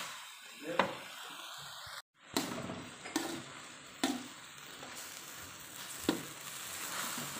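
Fern greens sizzling as they stir-fry in an aluminium wok, a metal spatula scraping through them and knocking sharply against the pan about five times. The sound cuts out completely for a moment about two seconds in.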